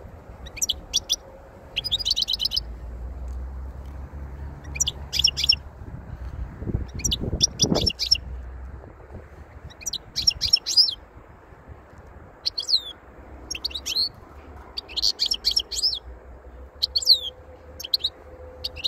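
European goldfinch singing: short phrases of high, fast twittering, about one every second or two, with brief pauses between them.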